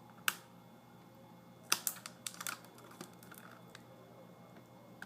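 Hard plastic clicks and taps from handling a laptop's screen assembly: one click, then a quick cluster of clicks about two seconds in, and a few scattered ones after.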